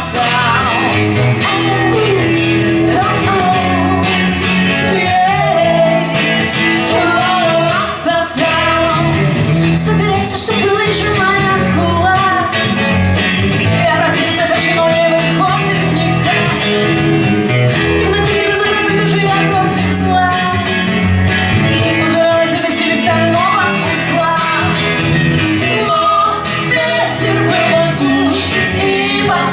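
A song performed unplugged: a singing voice over strummed guitar and band accompaniment, playing continuously.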